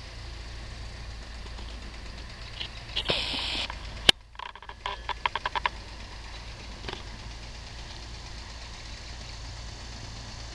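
A steady low motor hum, like an engine idling. About three seconds in there is a brief hiss, then one sharp click, then a quick run of ticks.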